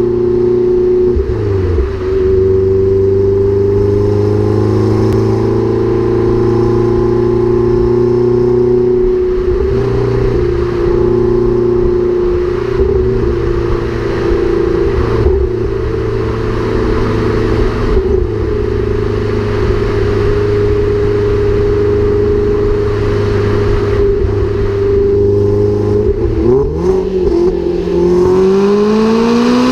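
Lotus Exige S engine running through its stock exhaust, held at steady revs for long stretches. The revs briefly dip and recover a few times, then climb near the end.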